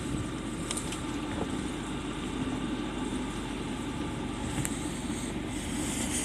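Boat engine idling steadily in forward gear, holding the bow against the ice.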